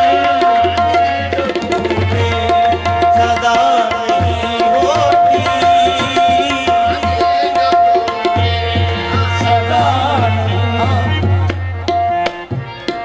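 Qawwali music: harmoniums with one note held as a drone under a wavering melody, and tabla keeping a fast, driving rhythm. The music eases off about a second before the end.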